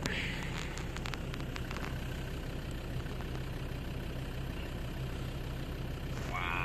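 A steady low engine hum, with a few light clicks in the first two seconds.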